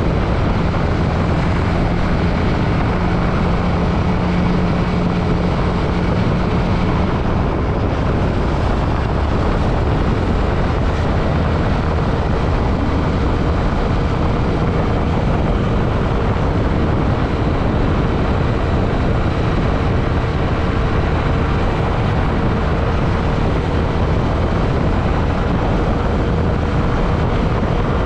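Yamaha WR155 trail motorcycle's single-cylinder engine running steadily under way, with heavy wind rush over the microphone. A lower engine tone holds for the first several seconds, then gives way to a higher one.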